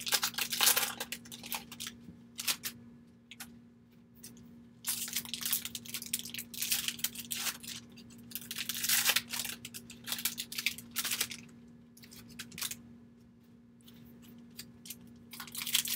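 Plastic wrapper of a Bowman baseball card pack crinkling and tearing in repeated bursts as it is opened and crumpled, with the cards handled between the bursts. A faint steady hum runs underneath.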